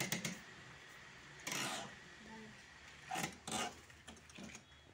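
Wooden pigeon box being handled: a few knocks and bumps of its plank door and panels, with a longer wooden scrape about one and a half seconds in.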